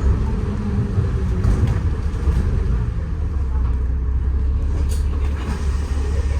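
Moving city bus heard from inside the passenger cabin: a steady low rumble of engine and road noise.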